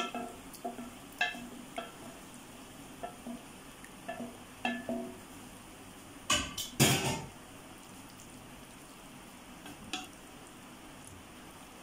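A spoon scraping and tapping against a metal cooking pot and plate as thick prawn masala is spooned onto cooked rice to layer it. Scattered light knocks, with two louder clatters about six and seven seconds in.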